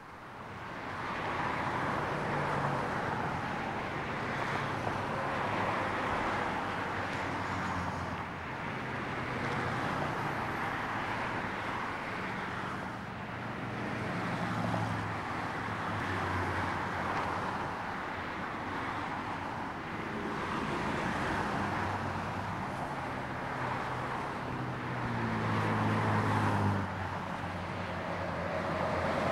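Road traffic going by: tyre and engine noise swelling and fading as vehicles pass one after another, with a louder stretch near the end that cuts off abruptly.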